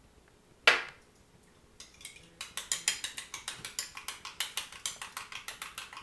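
Egg whites being beaten with a fork in a ceramic bowl: a fast, even run of fork-on-bowl clicks starting about two seconds in. A single sharp knock comes about a second in, as something is set down on the table.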